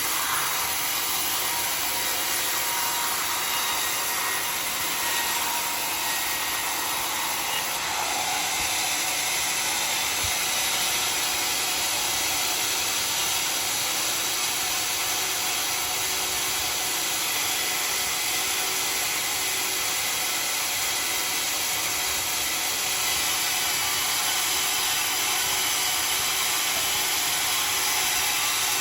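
Homemade sawmill's saw cutting through dry acacia wood: a steady, unbroken sawing noise.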